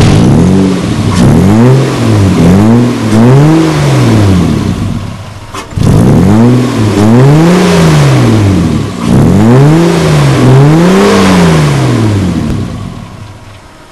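Abarth 2300 sports car engine revved repeatedly through its exhaust, the pitch rising and falling with each blip. A brief dip comes about five and a half seconds in, followed by several more revs, and the sound fades near the end.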